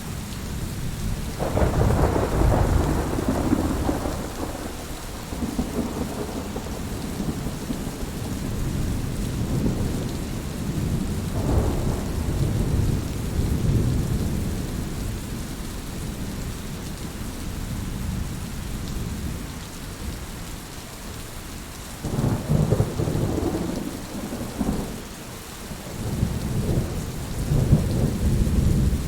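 Steady rain with rolling rumbles of thunder that swell and fade several times: one near the start, one about halfway through, and a longer spell near the end.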